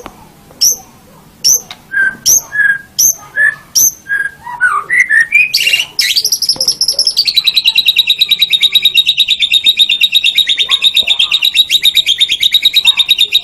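White-rumped shama (murai batu) singing: a string of sharp, quickly falling whistled notes, then, about six seconds in, a long, fast, even trill.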